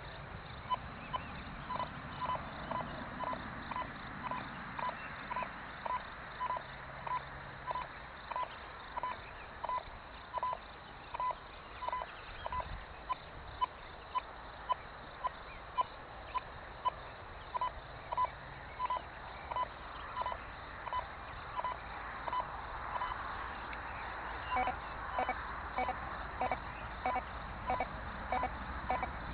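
Metal detector giving short beeps about twice a second as its search coil is swept back and forth over a stone with three coins hidden beneath it, each pass signalling the coins. Near the end the beeps take on a lower, two-pitched tone.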